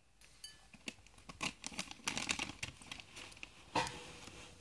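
Wet clicking and smacking mouth sounds from a mouth crammed with marshmallows, spluttering over a bowl. A short breathy burst of muffled laughter comes about four seconds in.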